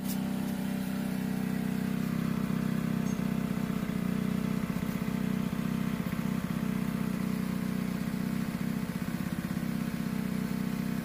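A motor running steadily at a constant speed: a low, even drone that does not rise or fall.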